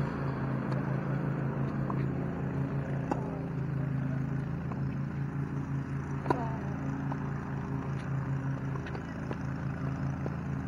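Tennis racket strikes on the ball during a rally: several short sharp pops a second or more apart. The loudest comes about six seconds in, a forehand hit close by, with fainter hits from the far end of the court. A steady low pulsing hum runs underneath.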